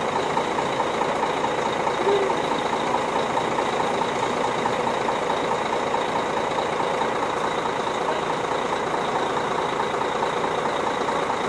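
Coach buses idling in heavy rain: a steady, unchanging engine hum with a faint high whine, over the even hiss of the rain.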